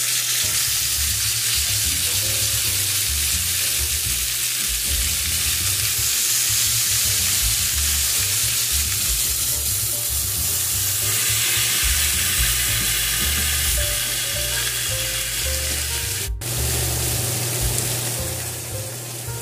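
Chicken breasts searing in hot olive oil in a stainless steel skillet, a steady sizzle as the pieces are laid into the pan with tongs. The sound drops out for an instant near the end.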